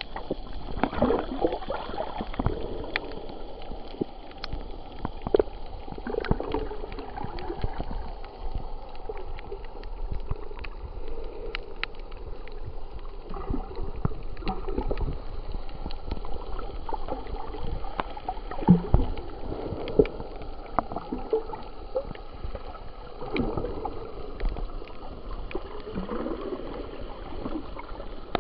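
Underwater sound picked up by a submerged camera: muffled gurgling and swishing of water that swells every few seconds, with scattered sharp clicks throughout.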